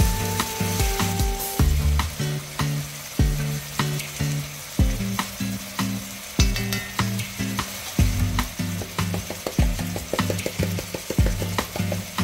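Tomato chunks and minced garlic sizzling steadily in hot oil in a frying pan on medium heat. Under it runs background music with a steady beat and low repeating notes.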